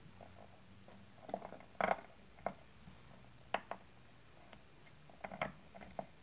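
A miniature wooden rolling pin and fingertips working a sheet of dough on a mat over a steel counter, giving an irregular scatter of small taps and knocks, the loudest about two seconds in.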